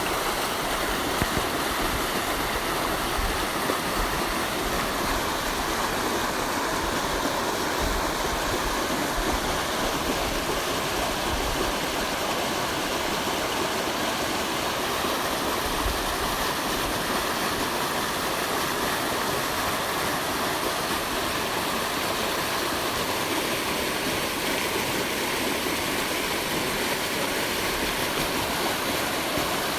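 Water flowing steadily: an even, unbroken rush of running water.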